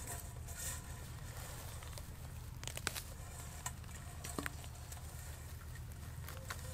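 Faint scattered clicks and rustles of hands picking and trimming mushrooms in the grass over a metal bowl, a handful of sharp ticks spread through, over a steady low background hum.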